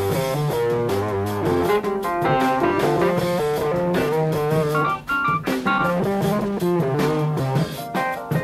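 Jazz-rock fusion band playing live: busy electric guitar lines over electric bass and drum kit, with fast note runs throughout.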